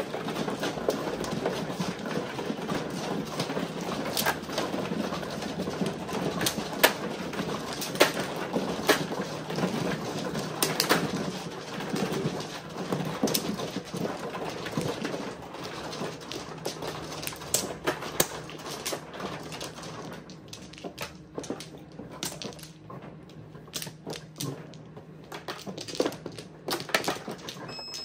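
Mahjong tiles clattering and clicking against each other and the table. The clatter is dense for about the first twenty seconds, then thins out to scattered clicks.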